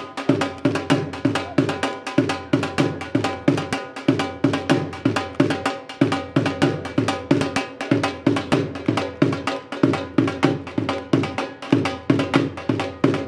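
Drum-led music with a fast, even beat of about three strokes a second over a steady held tone.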